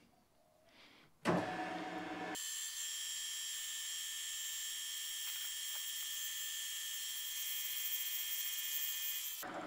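Milling machine's power feed driving the table under a long end mill taking a very light cut, a steady high machine whine. It starts suddenly about a second in and changes in tone about a second later.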